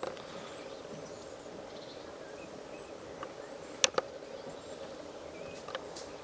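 Garden birds giving faint, short chirps over a steady low hum, with two sharp clicks close together about four seconds in.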